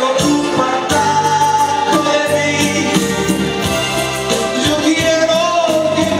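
A man singing long held notes into a microphone, with an acoustic guitar accompanying him.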